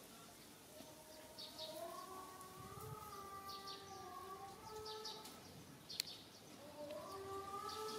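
A faint wailing tone that rises and falls slowly over a few seconds at a time, like a distant siren, with short bird chirps over it and a single click about six seconds in.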